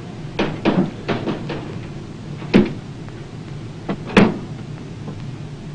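Clattering and knocking of a cabinet door being opened and rummaged through: a quick run of knocks at first, then a sharp click about two and a half seconds in, and two more knocks about four seconds in, the last the loudest.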